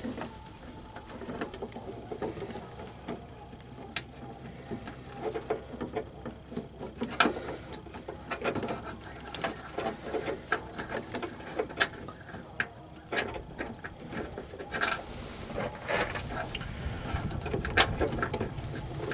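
Irregular small clicks and rattles of hands working plastic headlight parts, fitting an HID bulb into the headlight housing.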